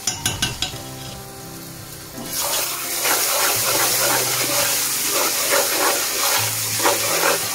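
Chopped onions sizzling in hot oil in an aluminium pot, with a metal slotted spoon scraping and stirring through them. A few spoon clicks come first, and the loud sizzle swells up about two seconds in.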